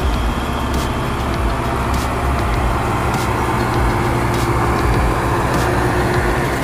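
Motor of a homemade remote-control model tractor running steadily as it drives over sand pulling a loaded trailer, with faint ticks about once a second.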